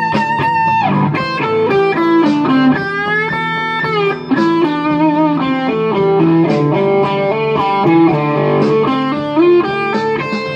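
Electric guitar playing an instrumental lead melody. It opens on a held note with vibrato, then moves into runs of quick notes, over a steady lower accompaniment.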